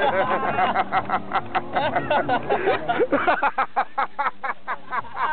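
A man laughing hard, breaking into a fast run of short, even bursts in the second half.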